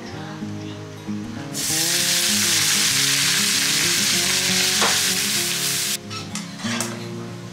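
Food frying in a hot pan, sizzling loudly for about four and a half seconds from about one and a half seconds in, then stopping suddenly. Background music plays underneath.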